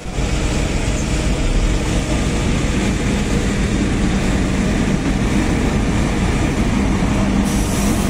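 Steady rumble of a running engine, with a steady low hum that comes in about three seconds in and holds.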